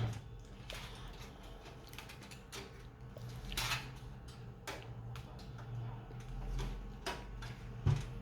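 Scattered light clicks and knocks of hands handling cables and parts inside a desktop PC case, with a sharper knock near the end.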